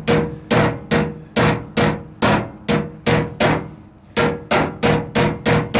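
Ball-peen hammer striking the sheet-steel fender lip from behind, about fourteen ringing metallic blows at a steady two to three a second with a short pause about three and a half seconds in: knocking a caved-in dent in the fender lip back out.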